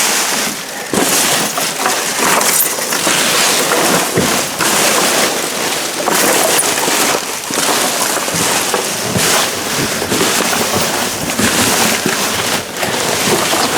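Trash being rummaged through in a dumpster: steady crinkling and rustling with frequent small knocks and clatters.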